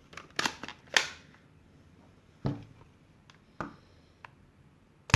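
Clicks and short scrapes of a spring-powered Nerf blaster with a 3D-printed kit being loaded and primed, then a sharp shot near the end as it fires a Mega XL dart.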